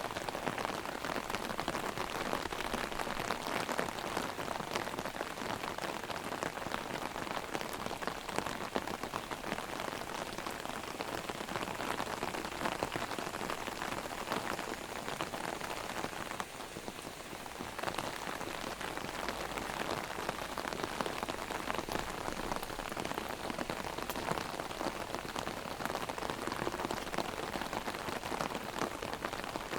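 Heavy rain drumming on an umbrella held overhead: a dense hiss of rain with countless close taps of drops on the canopy. It dips briefly a little past the middle, then carries on as before.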